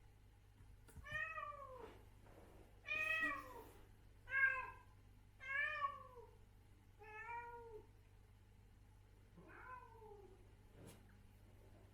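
Adult female cat meowing six times, each meow falling in pitch at its end, about a second or so apart, the last one fainter.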